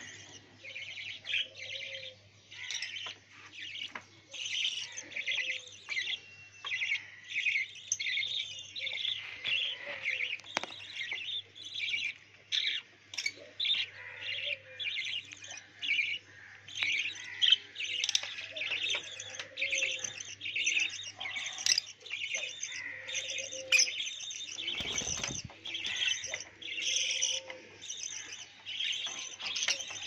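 A flock of small parrots, lovebirds and budgerigars, chirping and chattering nonstop in shrill, overlapping calls. A lower short call recurs about every two seconds beneath the chatter.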